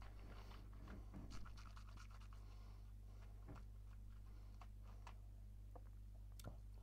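Near silence: room tone with a steady low electrical hum and a few faint, scattered clicks.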